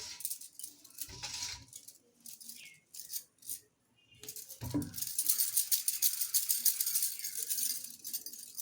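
Dense, light rattling and clicking while hands roll small balls of maida dough for momos, thickest in the second half. A few short dull bumps come near the start and just before the middle.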